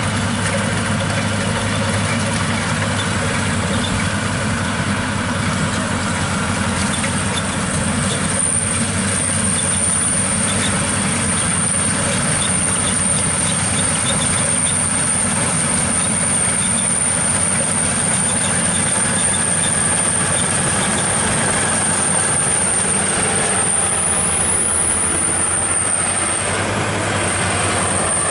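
Maxxi Bimo 102L rice combine harvester running under load while cutting and threshing rice: a steady engine drone with a dense mechanical rattle. A thin high whine joins about eight seconds in and stops near the end.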